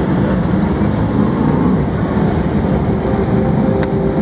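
A pack of BriSCA F1 stock cars racing past, their V8 engines running together in a loud, steady din, with one sharp click near the end.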